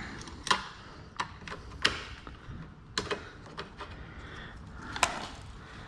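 Handling noise with about five sharp, irregularly spaced clicks and knocks, as the old side mirror and its wiring harness are worked out through the car door.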